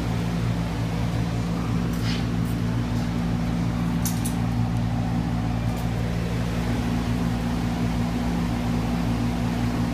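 Steady low mechanical hum of a fan-like machine running in the workshop, with a few faint clicks about two, four and six seconds in.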